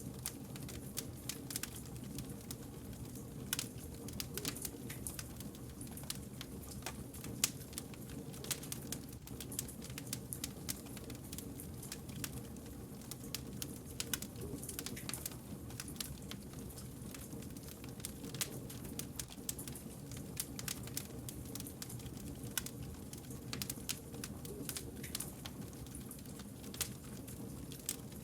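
Wood fire crackling, with frequent irregular sharp pops and snaps over a steady low rush of burning logs.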